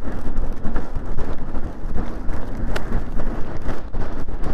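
Wind buffeting the microphone of a camera on a moving electric dirt bike, a loud steady rumble with a few short clicks.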